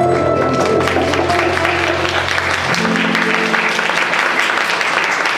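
A small acoustic samba band's closing chord rings out over a low double-bass note and stops about two and a half seconds in. Audience applause builds under it and carries on steadily after the chord ends.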